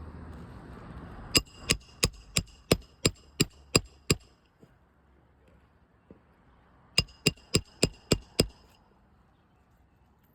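Roofing hammer striking a metal roof snake to drive roofing nails back in under a shingle: a run of nine quick, ringing metallic blows about three a second, a pause of a few seconds, then six more.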